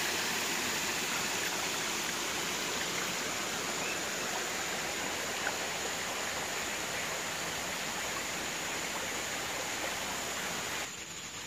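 Water of a shallow rocky river rushing over stones and a small cascade: a steady, even rush. It drops off abruptly near the end.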